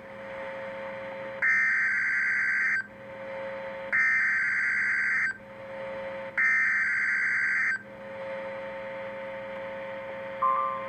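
Emergency Alert System SAME digital header sent three times over NOAA Weather Radio: three harsh buzzing data bursts, each just over a second long, about a second apart, over a steady background hum. The header announces the next warning. A short two-note blip comes near the end.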